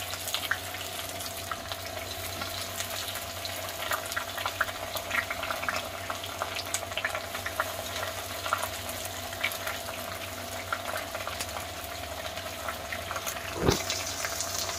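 Sliced onions sizzling and crackling in hot mustard oil in an iron kadhai, a steady hiss full of small pops over a low hum. A single knock comes near the end, and the hiss grows louder after it.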